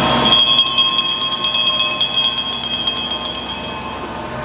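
Bell on a small trackless tourist road train ringing rapidly as the train passes. The ringing starts suddenly and dies away about three and a half seconds in.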